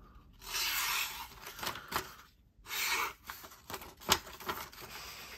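A sharp folding-knife blade slicing through a sheet of paper twice, each cut a short papery hiss, the first about half a second in and the second around three seconds, with small rustles and clicks of the paper being handled in between.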